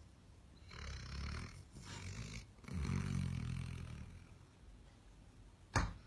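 Sleeping yellow Labrador snoring loudly: two airy breaths, then a longer, low, rattling snore. Near the end comes a single short, sharp knock, the loudest sound.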